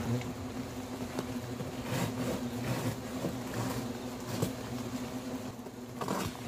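A large number of hornets buzzing around their disturbed nest in a steady, droning hum, with a few brief rustles about two and six seconds in.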